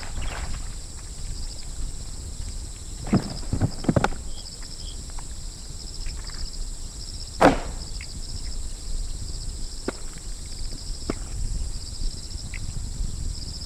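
Scattered sharp knocks, a cluster of three about three to four seconds in and the loudest a little past halfway, then fainter taps, over a steady high-pitched background drone with a faint pulsing rhythm.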